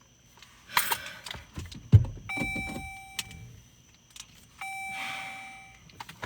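Keys jangling and a thump, then two steady electronic chimes from the car, each about a second long, as the car fails to start.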